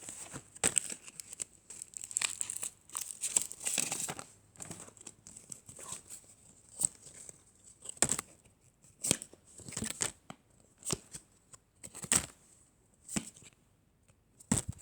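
A Yu-Gi-Oh booster pack's wrapper crinkling and tearing as it is opened, then a run of sharp clicks about once a second as the cards are handled.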